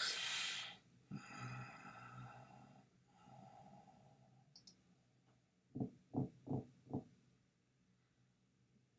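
A man's long breathy sigh, then four soft clicks in quick succession.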